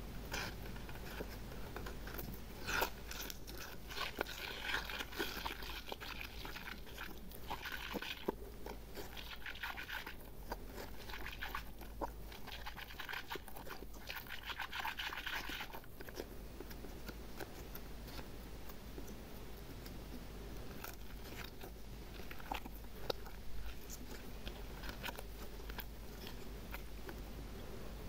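Clear glitter slime squeezed and pressed by fingers, giving a crackling, clicking sound. The crackle comes in two dense spells in the first half, then thins to occasional clicks.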